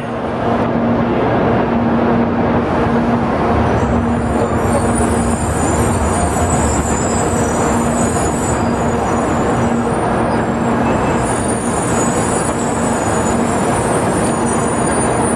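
A 700 series Shinkansen train pulling into the platform and slowing to a stop: a steady running noise of wheels and traction equipment, with a low hum that fades out about ten seconds in and a faint high whine coming and going.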